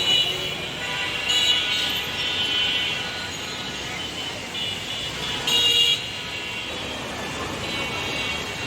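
Dense street traffic running steadily, with vehicle horns honking several times over it. The loudest is a half-second horn blast about five and a half seconds in.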